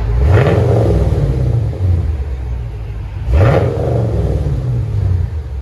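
2011 Chevrolet Camaro SS 6.2-litre V8 through a true dual exhaust with Flowmaster Hushpower axle-back mufflers and the mid resonator removed. It is revved twice from idle, about three seconds apart, and each blip falls back to idle.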